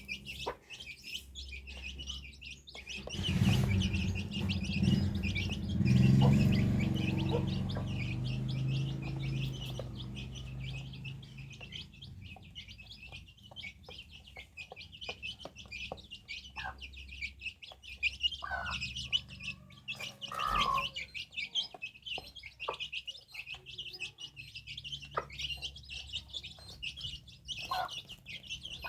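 Dense, unbroken high chirping of small birds, with a few short chicken clucks in the second half. A louder low drone swells a few seconds in and fades away by about ten seconds in.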